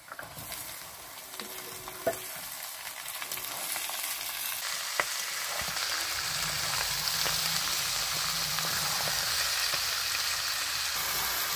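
Raw chicken pieces frying with sliced onions in hot oil in a metal wok (kadai), the sizzle building over the first several seconds and then holding steady. A metal spatula stirs the meat and clicks against the pan a few times.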